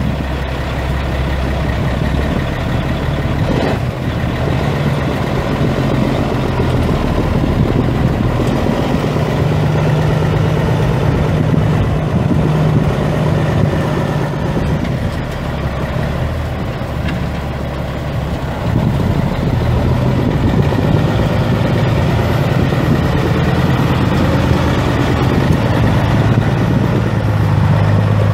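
Caterpillar C15 inline-six turbo diesel in a Peterbilt 379 idling, its note shifting slightly up and down at times. A brief click comes about four seconds in.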